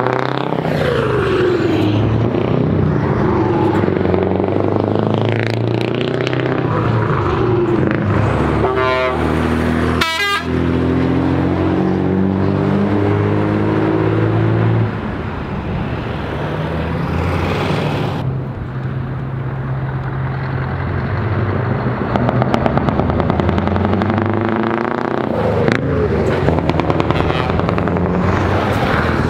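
Heavy truck engines running as classic lorries drive past one after another, including a Scania 143 V8 tractor unit, their pitch shifting as each goes by. A horn sounds briefly about ten seconds in.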